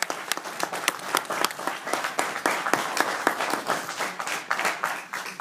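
Audience applauding: many hands clapping, the individual claps distinct.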